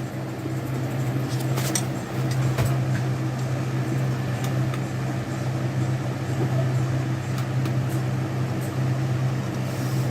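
A steady low machine hum, like a running fan or blower, with a few faint clicks and taps of handling on the workbench.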